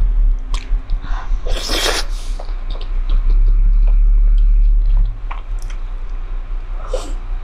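Close-miked eating of wide noodles in a thick sauce: one loud slurp about one and a half seconds in, then wet chewing with short smacks and clicks, over a steady low hum.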